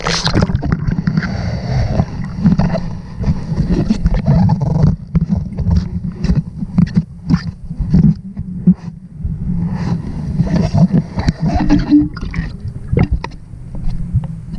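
Muffled water sloshing and gurgling heard by a camera held underwater in shallow, sandy water, with many sharp knocks and taps against the camera throughout.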